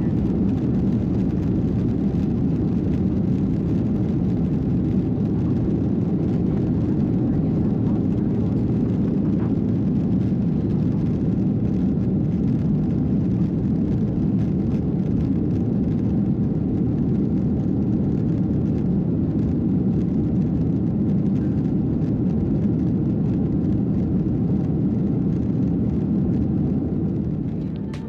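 Steady airliner cabin noise: the even low rumble and rush of jet engines and airflow, fading out near the end.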